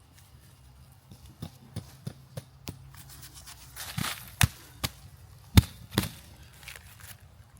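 Tent gear being handled: a series of sharp knocks and clicks, loudest three times in the second half, with a short burst of rustling tent fabric just before the middle.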